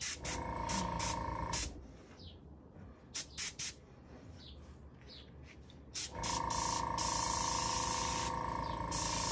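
Airbrush powered by a small air compressor, blowing air onto alcohol ink: a series of short puffs of hiss as the trigger is flicked, and two longer blasts with a steady whistling tone, the second starting about six seconds in and running on.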